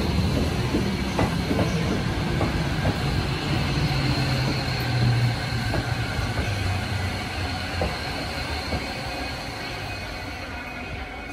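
Tokyo Metro Tozai Line electric commuter train running slowly past the platform. The steady rumble of its wheels on the rails carries a few scattered clicks over rail joints and a low hum, and the sound gradually fades.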